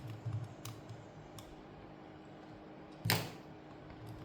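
A few faint clicks and taps of a tool working on the opened tablet's internals, as a ribbon cable is being unhooked, with one louder knock about three seconds in.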